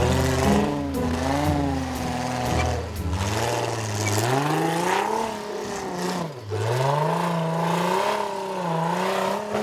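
Off-road buggy engine revving, its pitch rising and falling repeatedly as the throttle is worked, with a low steady rumble under it in the first few seconds.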